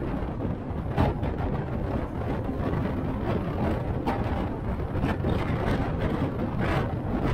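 Inside a moving city bus: steady engine and road rumble, with a few brief knocks, the sharpest about a second in.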